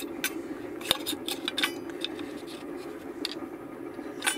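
Light clicks and taps of a thin bent brass strip being handled and fitted around a plywood forming jig with brass rods, several in the first two seconds and a couple more later, over a steady low hum.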